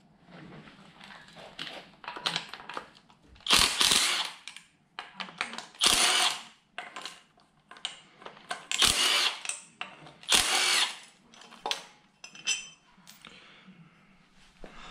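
Cordless drill-driver spinning in several short bursts, the four loudest in the middle, as it undoes the bolts of an engine's thermostat housing. Small clicks and rattles of the metal parts fall between the bursts.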